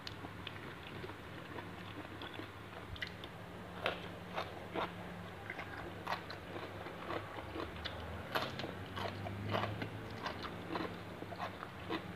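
Close-up mouth sounds of a person biting and chewing raw shrimp marinated in fish sauce (goong chae nam pla) and fresh greens: irregular crisp crunches, several a second at times, over a steady low hum.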